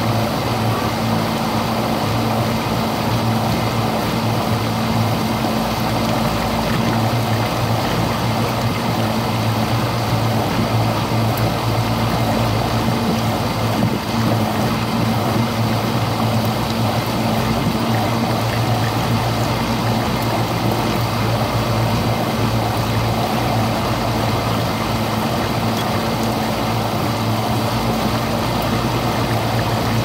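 Dishwasher running: a steady motor hum with water rushing through the pump underneath.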